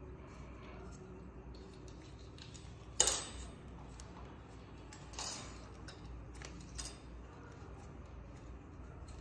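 Plastic phone-holder clamp and metal arm of a swivel table stand being handled and fitted together: one sharp click about three seconds in, then two softer knocks and a few faint ticks.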